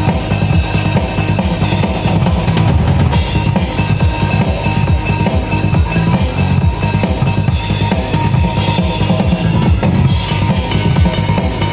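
Band music with a drum kit keeping a steady beat, the bass drum and snare standing out.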